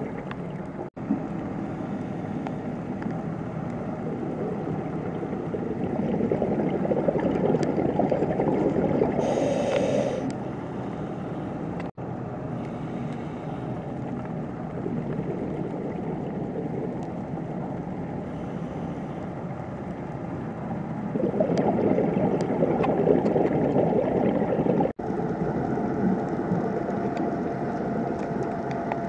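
Muffled underwater bubbling from a scuba diver's regulator as the diver breathes out, swelling louder for a few seconds twice, with a short hiss about a third of the way in.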